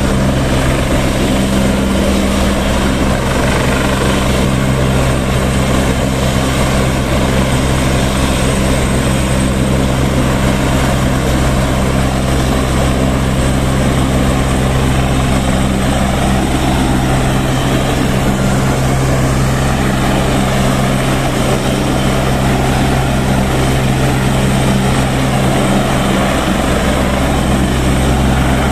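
Airbus EC175 twin-turboshaft helicopter running on the ground with its main rotor turning: a loud, steady drone that stays unchanged throughout.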